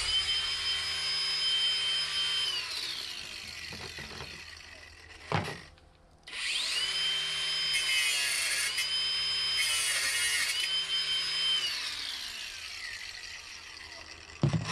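A handheld cordless power tool cutting a small fuel supply pipe on a buried heating-oil tank. It spins up, runs and winds down. After a knock it runs again for about six seconds, its pitch dipping several times as it bites into the pipe, and there is a clank near the end.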